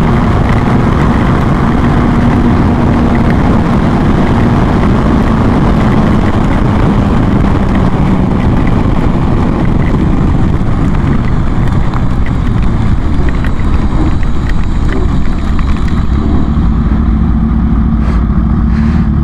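Kawasaki Ninja H2's supercharged inline-four running at highway speed under a heavy rush of wind on the microphone. Near the end the bike eases off and slows as it pulls onto the shoulder, and the wind rush fades.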